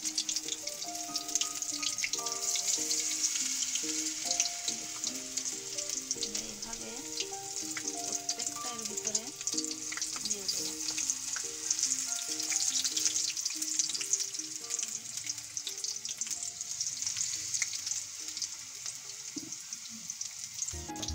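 Bok flowers (Sesbania grandiflora) in gram-flour batter deep-frying in hot oil in a steel kadai: a steady sizzle with dense crackling. Background music plays a melody under it and fades out near the end.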